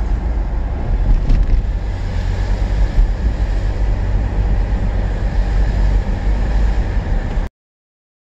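Car driving along a road, heard from inside the cabin: a steady low rumble of road and engine noise that cuts off abruptly near the end.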